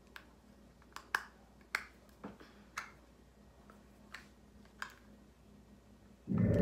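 Sharp, irregular clicks of long fingernails against a small plastic eyeshadow compact whose lid is stuck and will not open. Near the end comes a single loud, dull thump, the loudest sound here.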